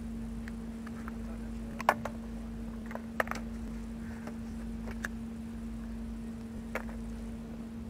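A few sharp clinks and knocks from tools and hub parts being handled at a truck's rear wheel hub, the loudest about two seconds in and another just after three seconds, over a steady low hum.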